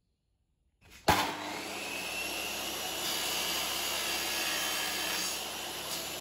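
Makita mitre saw switched on about a second in, its motor running at speed with a high whine as the blade is brought down through an aluminium bar. The sound cuts off suddenly near the end.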